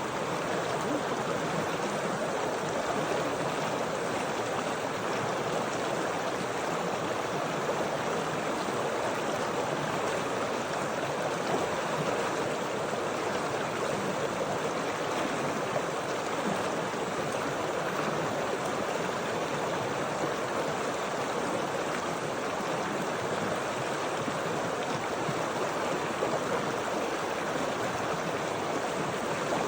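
Water flowing steadily in a stream, an even, unbroken rush.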